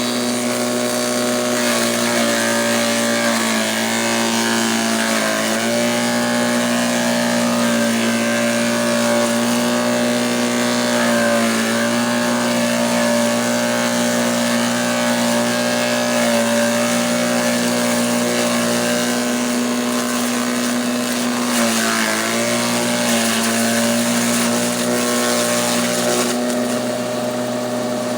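Engine-driven grass chopper (chaff cutter) running steadily, its engine dipping briefly in pitch a few times, around the third to fifth second and again about three-quarters of the way through.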